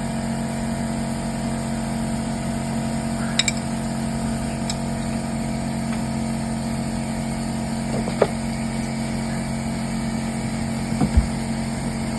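A steady low machine hum with a few sharp clicks of hand tools, about three and a half, eight and eleven seconds in, while brake bolts are tightened by hand.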